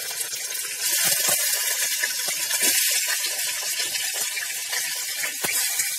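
Raw mutton pieces sizzling loudly in hot ghee in a steel pot, with a few soft knocks as more pieces are dropped in.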